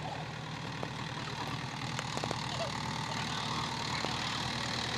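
Mahindra 585 DI tractor's diesel engine running steadily.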